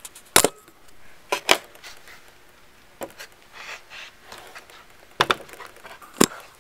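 Handling knocks from a painted wooden panel being shifted and turned over: about six sharp, separate knocks and bumps spread out, with quieter shuffling between them.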